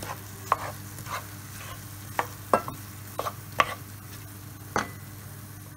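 Wooden spoon stirring diced raw chicken and onions in a nonstick frying pan, with short scrapes of the spoon against the pan at uneven intervals over a low steady sizzle of the chicken and onions frying.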